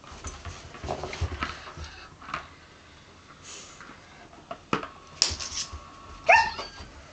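Petit Basset Griffon Vendéen playing with a toy hamster's plastic run-around ball: scuffling, paw taps and knocks of the ball, then a short sharp bark near the end.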